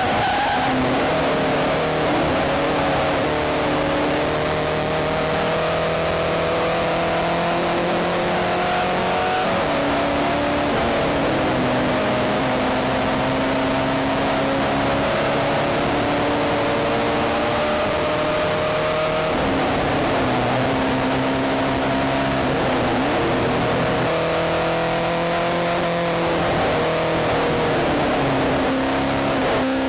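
Spec Racer Ford's four-cylinder engine running hard at racing speed, heard from on board. Its note climbs steadily under acceleration and drops back sharply at gear changes or lifts, about a third of the way in and several times in the second half. A steady rush of wind noise lies under it.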